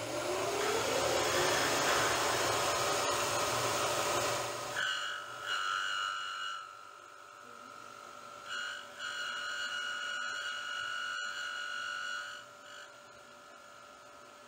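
A Bridgeport milling machine spins a long straight router bit at its top speed of about 3,500 RPM. In the first few seconds a motor winds up with a rising whine and a loud rush of air, which cuts off suddenly. The bit is then fed down into a wooden block, giving a high whine in two stretches of cutting.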